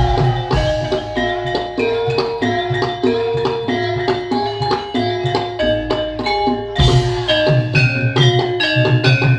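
Javanese gamelan music: bronze metallophones play a quick, even run of struck notes over steady drum strokes.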